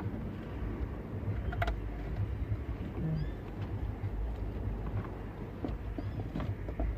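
A few sharp plastic clicks and knocks of car-stereo wiring plugs being pushed into an aftermarket head unit and the unit being handled, over a steady low rumble.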